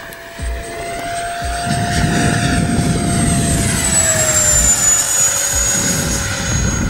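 Freewing MiG-21 electric ducted-fan RC jet making a low pass: a steady fan whine that drops in pitch about four seconds in as the jet goes by, over a rushing low rumble.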